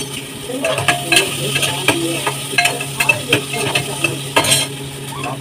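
A spatula scraping and knocking irregularly against a black pot on a gas stove, stirring potato and eggplant as they fry. The knocks stop shortly before the end.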